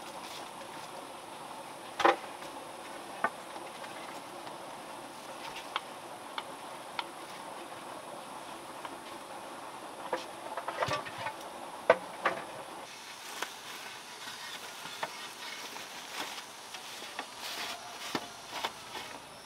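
Steady high buzzing of insects in the vegetation, with scattered sharp knocks and clicks of footsteps and handling on bamboo, the loudest about two seconds in and a cluster around eleven to twelve seconds.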